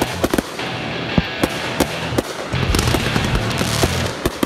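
Consumer fireworks going off: a rapid, irregular string of pops and bangs over crackling as several shots go up and burst together. Music with a heavy bass runs underneath, strongest in the second half.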